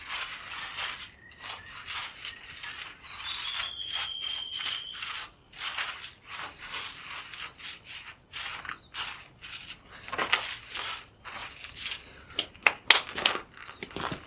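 A hand sweeping and scattering the ash and grit of a burnt-out campfire across a sandstone rock floor: a long run of short, scratchy brushing strokes. A bird whistles one drawn-out note about three seconds in, and near the end come sharper, louder crunching steps on grit.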